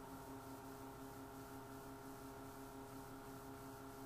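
Faint steady electrical hum made of several steady tones, one low tone pulsing evenly several times a second, with no tool or part noises.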